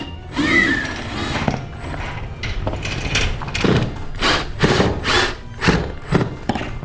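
Cordless drill-driver driving screws to fasten a curtain-rod scroll bracket to the wall, in a series of short bursts, its motor whine rising as it spins up.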